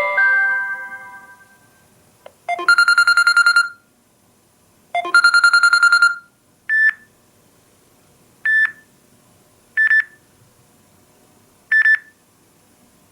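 Samsung Galaxy A7 (2018) stock ringtones. A chime fades out over the first couple of seconds, then a rapid trilling telephone-style ring sounds twice, each about a second long, followed by four short electronic beeps spaced a second or two apart.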